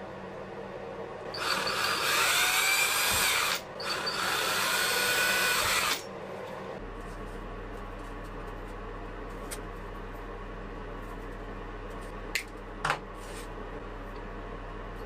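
A small handheld power tool runs in two bursts of about two seconds each, its whine wavering in pitch as it works the rusty knife blade. Afterwards there is only a low steady hum, with two short clicks near the end.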